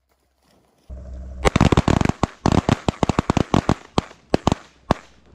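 A rapid volley of shotgun fire from several guns at once. Over about three and a half seconds the shots come fast, about five or six a second and some overlapping, then thin out to a few last shots near the end.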